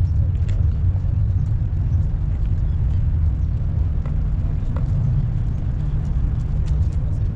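Steady low wind rumble on the microphone, with a few faint clicks.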